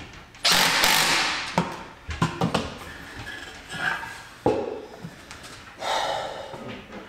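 Cordless drill run for about a second, tightening the hose clamp that holds header wrap on an exhaust pipe, followed by a few sharp knocks of metal parts set down on a wooden workbench and another short burst near the end.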